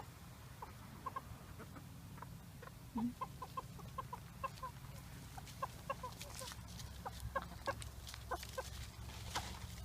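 Small flock of Cochin and Mille Fleur bantam chickens clucking softly, a run of short clucks coming several times a second, with scattered sharp clicks among them.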